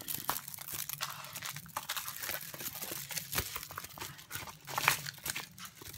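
Plastic-film-covered diamond painting canvas crinkling and rustling as it is unrolled and handled: a run of irregular crackles and rustles.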